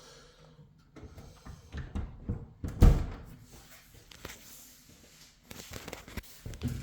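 Zanussi dishwasher door knocked and shut with a loud thump about three seconds in. From about five and a half seconds in, a steady low hum begins: the drain pump running at the start of the cycle, now that the new door switch lets it start.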